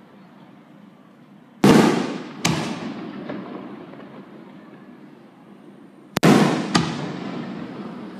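Aerial firework shells bursting: two pairs of sharp bangs, about a second and a half in and about six seconds in, each dying away slowly.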